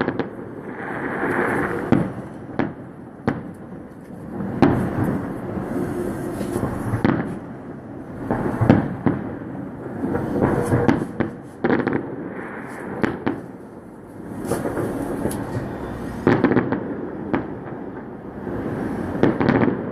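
Fireworks display: aerial shells bursting in a series of sharp bangs at irregular intervals, a dozen or more, over a continuous wash of crackling and rumbling noise.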